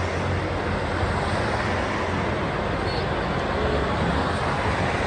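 Cars of a motorcade driving past on a city street: a steady rumble of engine and road noise.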